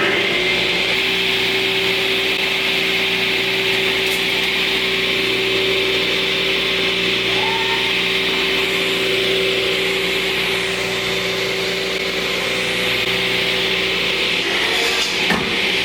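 Power saw running steadily and cutting through a sheet of plywood, with a constant whine over a gritty hiss of blade in wood.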